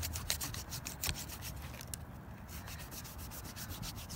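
Knife blade sawing back and forth through frozen deer hide and hair, a quick run of rasping scrapes that pauses about two seconds in and resumes more faintly.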